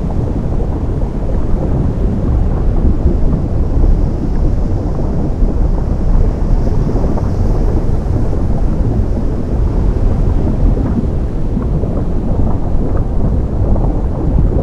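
Ocean water meeting molten lava: a continuous deep rumble with a dense crackle, steady throughout.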